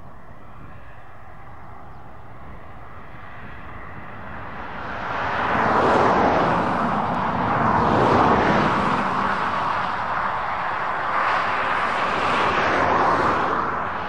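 New Holland tractor and trailed Grimme GT 170 S potato harvester working: a steady machine drone that swells about five seconds in into a loud rushing noise, which rises and falls a few times and drops back near the end.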